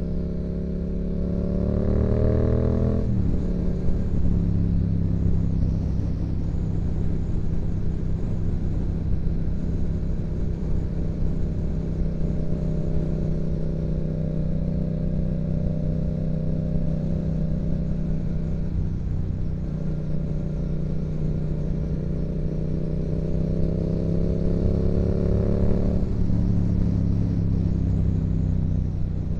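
Yamaha MT-07's parallel-twin engine through a Yoshimura exhaust, under way. The engine note climbs for about three seconds, falls away sharply as at a gear change, then holds steady. Near the end it climbs again for several seconds and falls once more.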